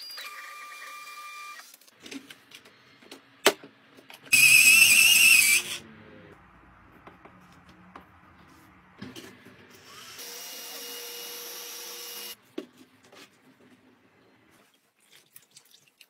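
A small portable printer running as it feeds a sheet, then a loud motor burst of about a second and a half. Later a small gadget motor runs steadily for about two seconds, with scattered clicks and taps in between.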